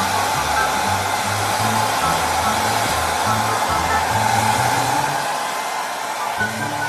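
A loud, steady rushing noise like a blower, over background music with a low bass line.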